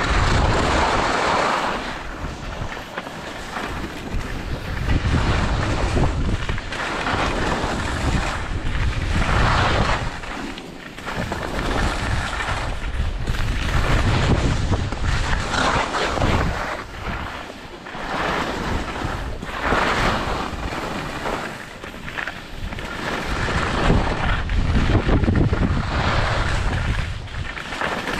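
Wind rushing over a skier's action-camera microphone during a downhill run, with skis scraping over the snow; the noise swells and eases every few seconds.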